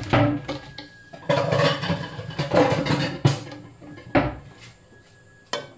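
A lid being put on a cooking pot: a knock as it starts, then a couple of seconds of clattering and rattling of lid against pot, with single knocks about four seconds in and near the end.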